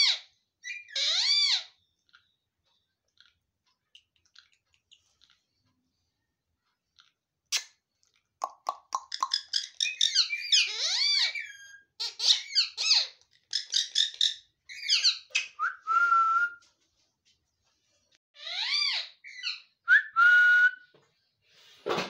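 Indian ringneck parakeets calling with shrill, high-pitched whistles and chirps in quick bursts. The calling stops for several seconds a couple of seconds in, then picks up again in a long run, pauses briefly, and comes back for a few more calls near the end.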